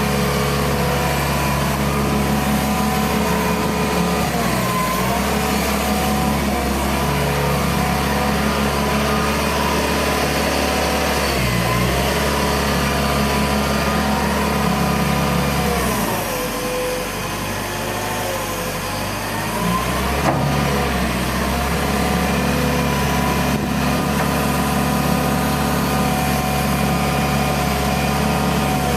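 Hitachi EX120 hydraulic excavator running: diesel engine and hydraulic pump whine. The pitch sags and recovers several times as the machine works, most deeply from about two-thirds of the way through, where it also gets a little quieter before picking back up.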